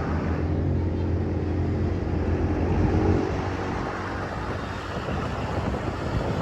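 Bus engine running with a steady low drone for about three seconds, then giving way to rougher road and traffic noise.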